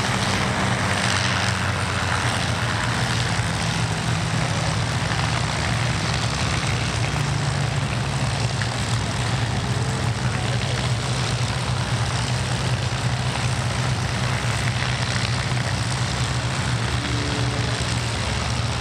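P-51 Mustang fighters' Packard Merlin V-12 engines running on the ground, a steady propeller drone whose pitch rises slightly about seven seconds in.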